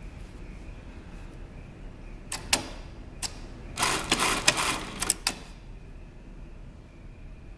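XL 8810BTF single-needle industrial sewing machine: a few sharp clicks, then about a second of rapid stitching, followed by a few more clicks as it stops.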